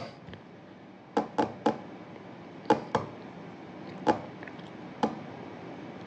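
Seven short, light taps over faint room noise: three in quick succession just after a second in, two more near three seconds, then single taps at about four and five seconds.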